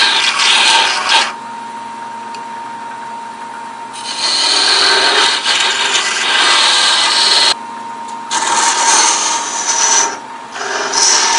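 Wood lathe running while small hook-tipped captive-ring scrapers cut into a spinning wooden spindle. The scraping comes in several spells, about a second at the start, then from about 4 to 7.5 seconds, again around 8 to 10 seconds and near the end. Between the spells the lathe's steady hum is heard alone.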